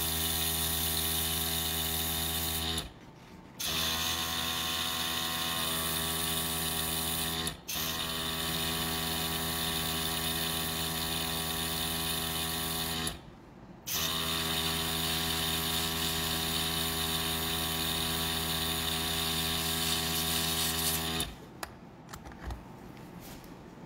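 Airbrush compressor running with a steady electric hum, cutting out briefly twice and stopping a few seconds before the end.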